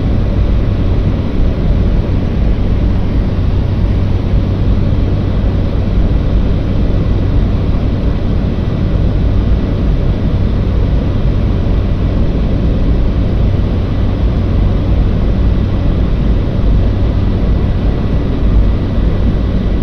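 Small propeller aircraft in flight, heard from on board: the engine and propeller drone steadily with a constant low hum and a faint steady whine above it, unchanging throughout.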